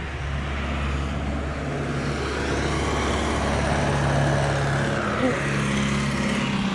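Motor vehicle running on the road, a steady engine hum with road noise that swells through the middle and eases toward the end, as of a vehicle driving past.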